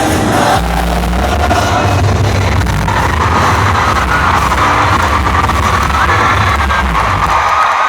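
Live gospel worship music from a band, loud and heavy in the bass, with crowd voices faintly mixed in.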